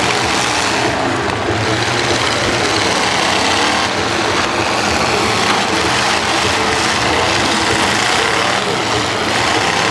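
Several demolition-derby cars running at once on open exhaust stacks, a loud steady din of engines with some rising and falling revs.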